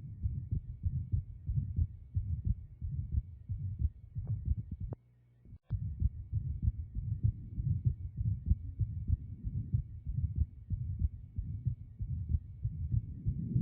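Abnormal heart sounds of an atrial septal defect heard through a stethoscope: a steady train of low heartbeats. About five seconds in it drops out briefly and comes back with a sharp click.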